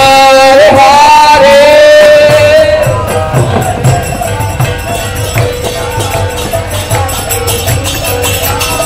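Devotional kirtan: a voice sings a held, wavering melody for the first two to three seconds, then drops back under an even beat on a mridanga drum and the jingle of karatal hand cymbals.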